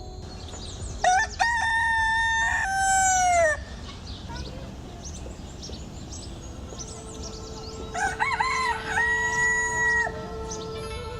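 A rooster crowing twice, two long calls about six seconds apart, each holding its note and dropping at the end, with faint bird chirps around them.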